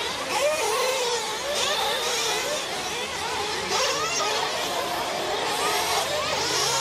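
Several nitro-engined RC race trucks on track together, their small high-revving glow engines buzzing and whining, the pitches rising and falling over one another as they throttle up and brake through the corners.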